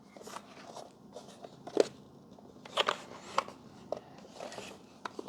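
Scattered light clicks and knocks, about half a dozen, with faint rustling: hard plastic equipment and packaging being handled.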